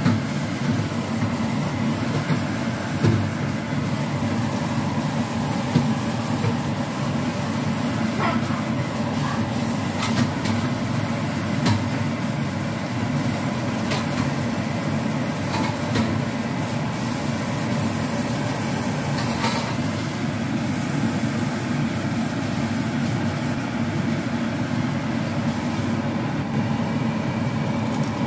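Steady low kitchen rumble with no pauses, broken by a few faint clicks of plastic-tipped cooking tongs against the pan and clay pot.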